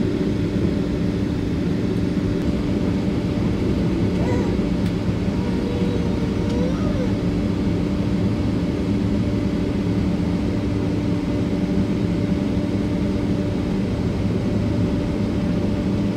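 Boeing 767-300ER's jet engines heard from inside the passenger cabin: a steady, even drone with a constant hum, no rise or fall in level.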